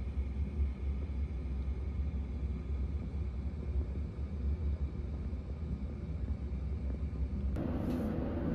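Low, steady rumble of outdoor city ambience with a faint high steady tone above it. Near the end it cuts abruptly to a different, fuller indoor room sound.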